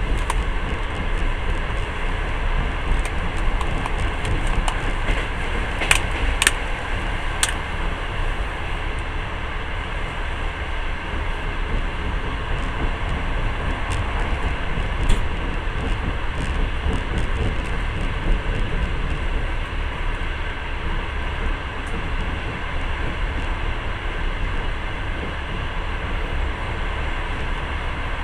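Moving passenger train heard from inside the carriage: a steady rumble and rush of wheels on rails, with a few sharp clicks about six to seven seconds in and once more around fifteen seconds.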